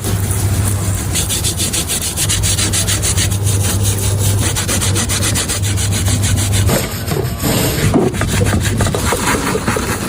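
Rapid back-and-forth scrubbing strokes, several a second, on a part of a disassembled steering rack being cleaned; the strokes stop about two-thirds of the way through.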